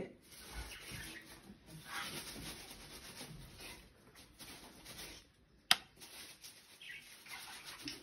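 Caged small pet birds chattering in scratchy, rapid bursts, fairly faint. A single sharp click about six seconds in.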